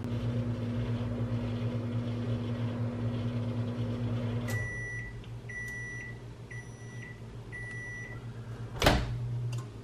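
Microwave oven reheating a mug of coffee, running with a steady low hum, then shutting off with a click about four and a half seconds in and giving four high beeps to signal the heating is done. A sharp clunk comes near the end.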